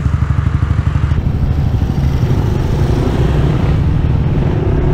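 Honda ADV160 scooter's single-cylinder engine idling with an even low throb, then about a second in the throb smooths into a steadier, building note as the scooter pulls away and rides off.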